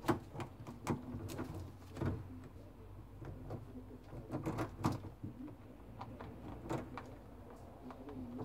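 Rabbits gnawing and tugging at a hanging seed treat stick, making irregular sharp clicks and knocks as the stick bumps against the wire mesh.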